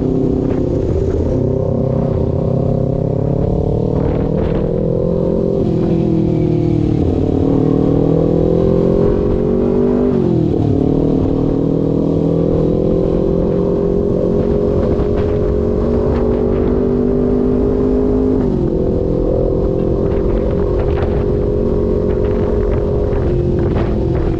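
Kawasaki Ninja 250 parallel-twin engine running through an R9 GP SS aftermarket exhaust, loud and continuous. Its pitch climbs slowly and drops sharply about four times.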